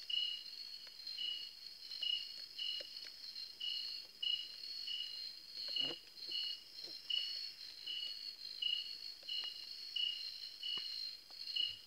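Night insects chirping: a steady high trill with a lower chirp repeating about twice a second, and a few faint clicks scattered through.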